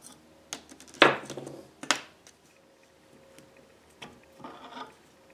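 A screwdriver and small metal parts being handled on a workbench while a motor armature is taken apart: a loud scrape and clatter about a second in, a sharp click just before two seconds, then lighter clicks and rustling around four seconds.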